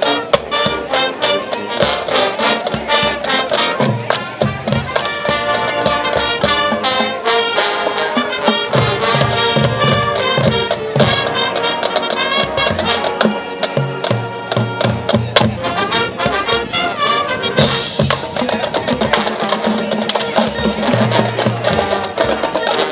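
Marching band playing: brass section over drumline percussion, with steady quick drum strokes beneath held and moving brass notes.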